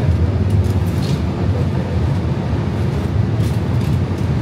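Steady low rumble of a Siemens S700 light-rail car rolling on its track, heard from inside the passenger cabin, with a few faint light clicks.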